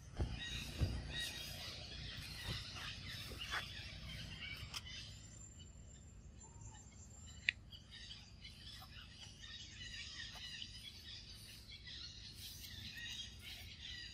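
Forest ambience: many small birds chirping and twittering in the canopy, over a low wind rumble on the microphone. There are a couple of thumps near the start, a thin high whistle held for about two and a half seconds from the middle, and a single sharp click about seven seconds in.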